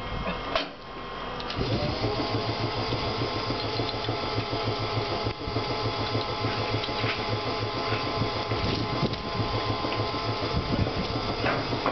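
A short clank, then an electric air compressor on a vintage Kotoden electric car starts about a second and a half in, spinning up and running with a steady, rapid chugging.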